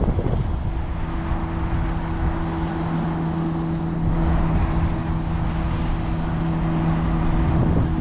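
Boat engine running with a steady, even hum, starting about half a second in, over wind rumbling on the microphone.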